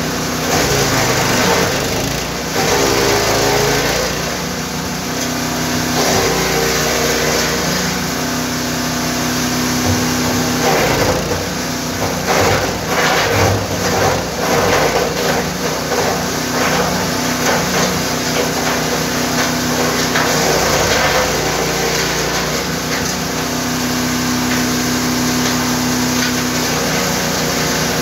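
GTM GTS 900 wood chipper's 9 hp engine running steadily. Around the middle comes a stretch of irregular cracking and knocking as wood is fed in and chipped.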